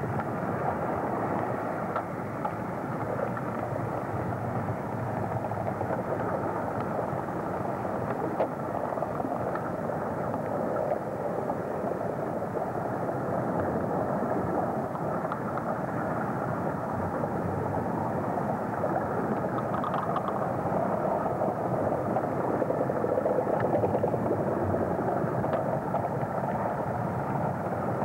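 Submarine lava eruption recorded underwater: lava breaking out into seawater and forming pillows, heard as a steady noisy rumble and hiss with a few faint clicks, swelling slightly a little past the middle.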